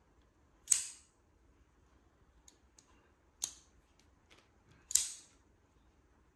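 Benchmade Mini Barrage assisted-opening folding knife: the blade snaps open and locks with a sharp metallic click, once under a second in and again about five seconds in. A lighter click about halfway, as the knife is closed, and a few faint ticks of the lock mechanism come between.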